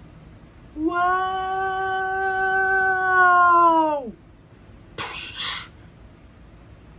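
One long held vocal cry, steady in pitch for about three seconds and then sliding down as it ends, followed about a second later by a short hissing burst.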